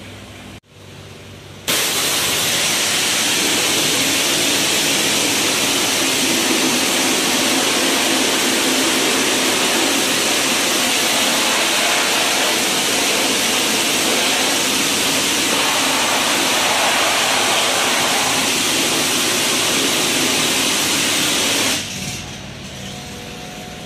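High-pressure water jetter blasting water along a channel drain: a loud, steady hiss of spray that cuts in about two seconds in and stops abruptly near the end, with a quieter hiss before and after.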